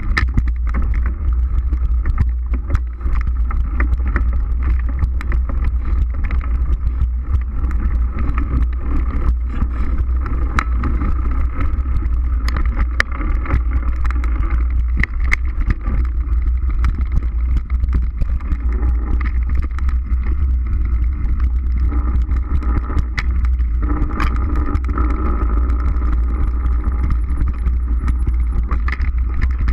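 Mountain bike ridden fast over a dirt forest trail, heard from a camera mounted on the bike or rider: a steady low rumble of tyres and wind, with constant rattling clicks as the bike jolts over roots and bumps.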